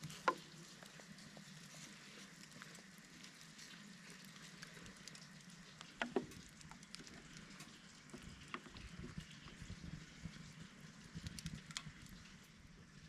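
Wood campfire crackling: a scatter of small ticks with three sharper pops, the loudest right at the start.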